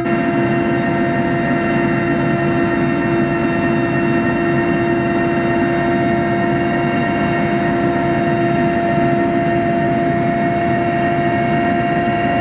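Aircraft in flight: a steady, loud drone of engine and airflow with a constant whine.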